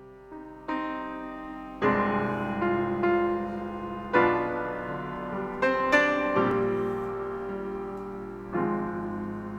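Piano introduction: slow chords, each struck and left to ring and fade.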